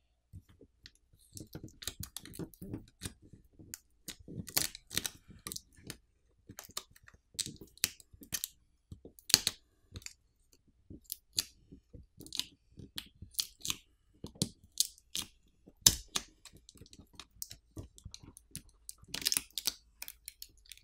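Battery pull-tab adhesive being pulled out from under a smartphone's pouch battery: irregular small crackles and clicks of the stretching, peeling tape as the battery is eased off its adhesive. A sharper knock comes about three-quarters of the way through.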